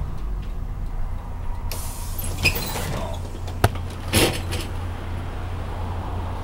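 1995 Hino Rainbow city bus's diesel engine running low and steady. About two seconds in comes a hiss of compressed air from the bus's pneumatics lasting about a second, then a sharp click and a second short burst of air hiss.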